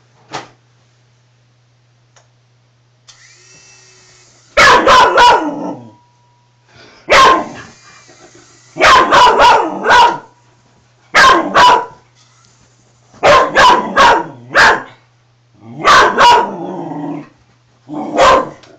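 Dog barking loudly and repeatedly in quick bursts of two to four barks, about seven bursts in all, starting a few seconds in. It is barking at a small remote-control toy helicopter that it dislikes.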